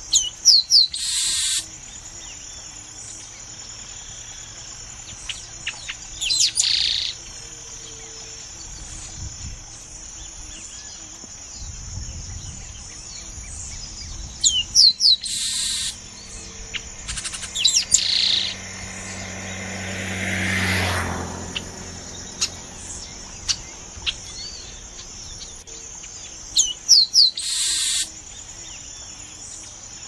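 Chestnut-capped blackbird (garibaldi) singing, its song repeated about five times: a few quick whistled notes, then a harsh buzz of about a second. A steady high insect drone runs underneath.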